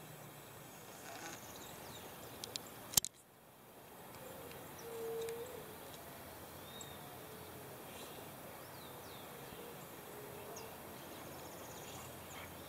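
Outdoor ambience with faint high bird chirps, a sharp click about three seconds in, and a few short, low hooting calls.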